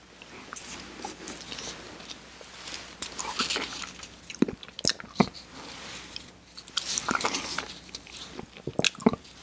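Crisp crackling and clicking of wafer ice cream cones being handled and pressed together close to the microphone, with a few sharp clicks about halfway through and a cluster near the end.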